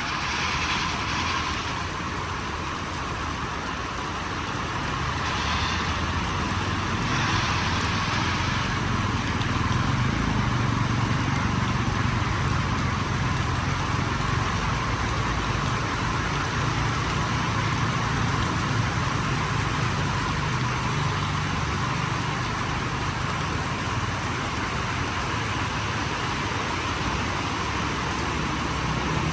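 Heavy rain falling steadily, with a steady low rumble underneath.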